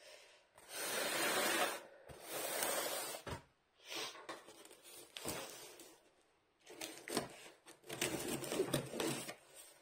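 A cardboard shipping box being handled and opened: a series of scraping, rustling strokes of about a second each, with sharp knocks and clicks between them.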